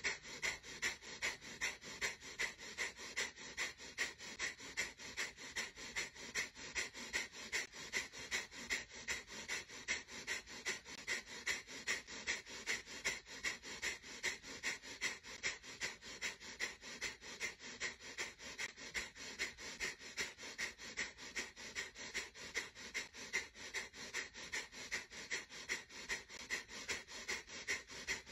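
Kapalbhati breathing: a steady run of short, forceful exhalations pushed out through the nose, evenly paced at roughly two to three a second.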